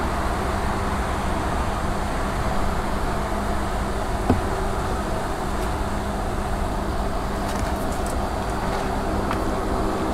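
Steady mechanical hum with a low drone, holding at an even level, with a single light click a little over four seconds in.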